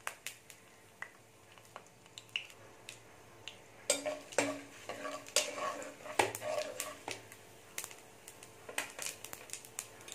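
Steel ladle scraping and knocking against a nonstick kadai as whole spices are stirred in hot coconut oil, with small sharp crackles from the spices frying. The stirring is busiest about four to seven seconds in.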